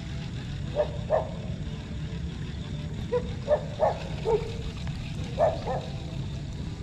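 A dog barking: about eight short barks, in a pair, then a run of four, then another pair, over a steady low rumble.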